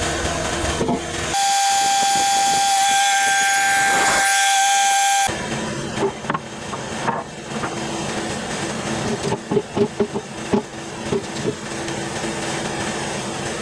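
Cooks AC36 sawmill running with a steady hum. About a second in, a loud hiss with a steady whistling tone starts abruptly, holds for about four seconds and cuts off. After it come a string of knocks and clunks over the running machine.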